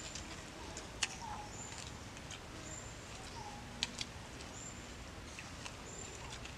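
Forest birds calling: short, high, thin whistles repeating every second or so, with shorter lower chirps between them, and a couple of sharp clicks about one and four seconds in.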